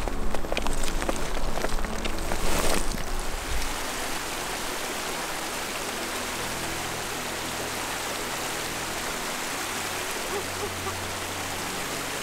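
Small mountain creek running over rocks, a steady rushing hiss. The first three or so seconds are louder, with sharp clicks and knocks over the water, and these stop about three and a half seconds in.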